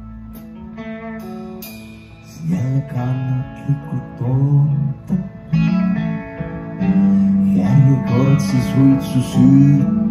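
Live band music: an electric guitar plays picked notes alone at first. About two seconds in, the music gets louder and a man's voice comes in over the guitar.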